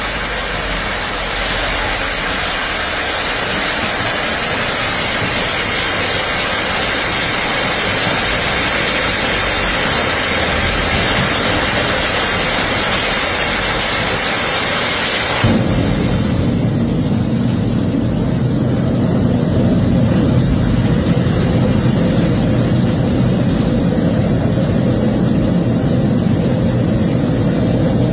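Dacia Spring electric car's battery pack burning in thermal runaway, venting with a loud steady hissing rush. About halfway through the sound changes abruptly to a deeper, steady rumble. The fire is put down to a structural failure of the batteries.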